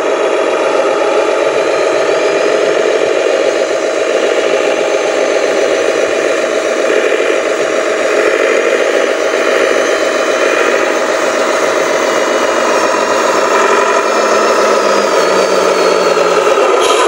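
Radio-controlled Hino 500 model truck running steadily: a continuous mechanical motor sound with rattle, and a faint high whine that drifts slowly lower.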